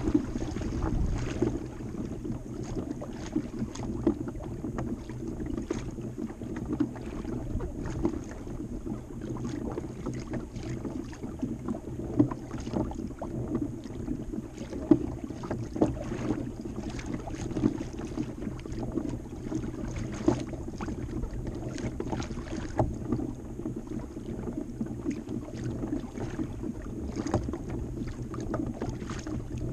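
Pedal fishing kayak under way on choppy open water: water slapping and gurgling against the hull, with irregular knocks and clicks from the boat and its fittings.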